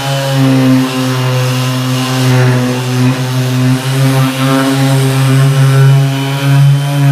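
Bosch GEX 125-1 AE random orbit sander running while sanding a pine board: a steady motor hum with many evenly spaced overtones, swelling and dipping slightly in loudness as the pad is moved over the wood.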